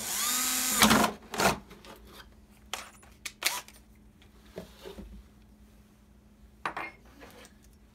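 Cordless drill with a paddle bit boring through a plastic trash can lid, running with a whine for about a second and then stopping. A knock follows, then a few light clicks as the drill and lid are handled.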